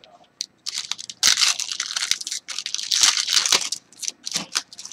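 Foil wrapper of a 2017 Bowman Chrome baseball card pack being crinkled and torn open by hand, in uneven crackling bursts, loudest about a second in and again about three seconds in.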